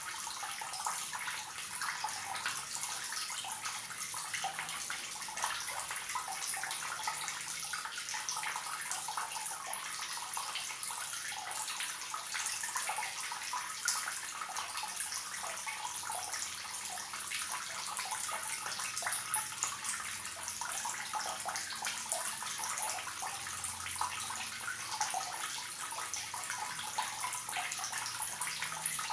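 Water running steadily from a leaking tap, a continuous splashing trickle with no break.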